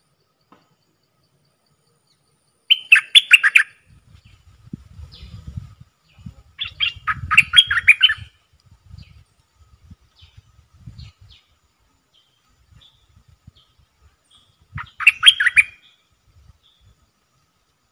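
A songbird singing three short bursts of rapid chirping song, about three, seven and fifteen seconds in, with soft low knocks and rustling in between.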